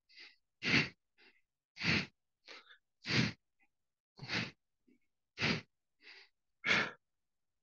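A man's sharp, forceful exhales into a headset microphone, about one every 1.2 seconds, with fainter inhales between: breathing in time with standing marching crunches, breathing out as each knee comes up to the elbow.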